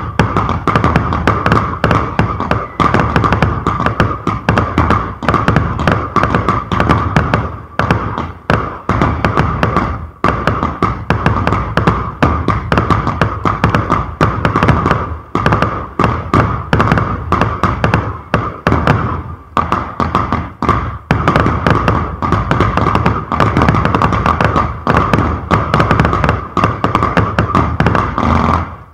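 Fireworks batteries (cakes) firing: a dense, continuous run of launch thumps and bursting bangs, several a second, with a steady high tone running underneath.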